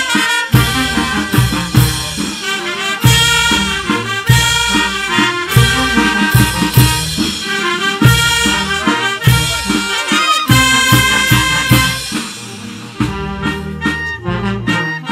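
Peruvian brass band playing a waltz: trumpets and saxophones carrying the tune over tubas, bass drum and snare drum. The music gets somewhat softer near the end.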